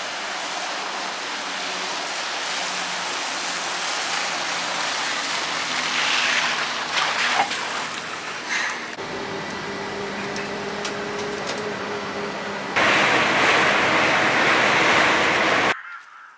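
Street traffic on a wet road: a steady hiss of tyres on wet asphalt with a city bus's engine humming. From about two-thirds of the way in, a louder rush of road noise takes over and cuts off abruptly shortly before the end.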